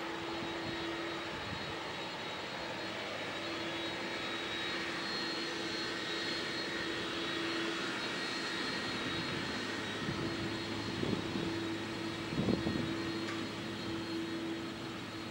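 Jet engines of an Airbus A330-200 airliner landing, a steady noise with a constant hum and a faint high whine. A couple of brief low thumps come near the end.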